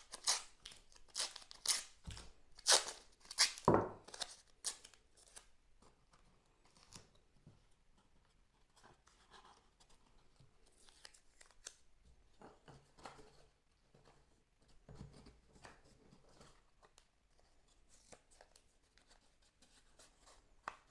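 Adhesive tape ripped off the roll in several quick, loud rasps over the first five seconds, then short strips torn off and pressed onto laser-cut wooden pieces, with quieter scattered tearing and handling noises.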